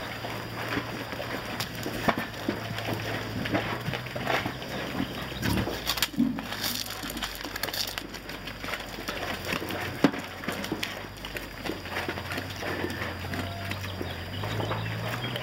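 Pigs feeding from bowls: a dense, irregular run of short chewing, snuffling and clacking noises, with one sharp knock about ten seconds in.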